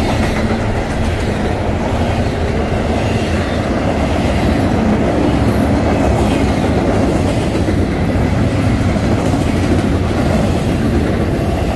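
Freight train cars rolling past, their wheels clacking over the rail joints in a steady rumble.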